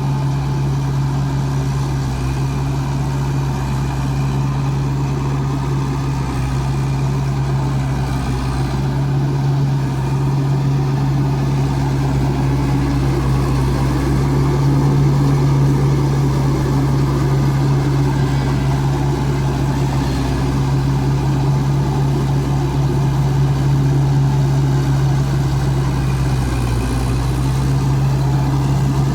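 Rice combine harvester's engine running steadily with a constant low hum, dipping briefly in pitch near the end.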